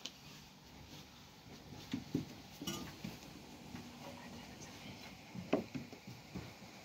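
Scattered light knocks and clinks of kitchenware: thin wooden rolling pins tapping on dough and a metal pan and tray being handled while bread dough is rolled out. The sharpest knock comes late on.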